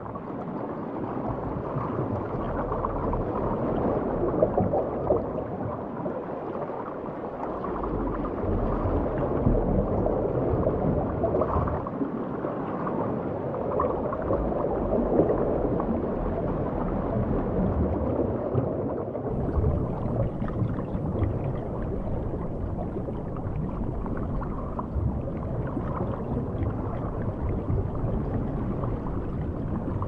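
Underwater ambience of a shallow coral reef: a continuous gurgling wash of moving water with a low rumble that comes and goes.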